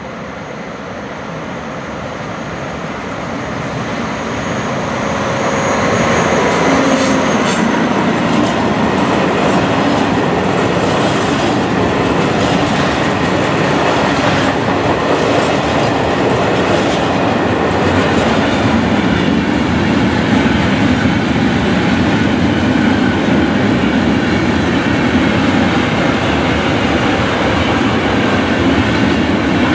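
Freight train passing close by: its rumble swells over the first six seconds, then steady rolling clatter of bogie flat and hopper wagons on the rails, with sharp wheel clicks between about 7 and 17 seconds.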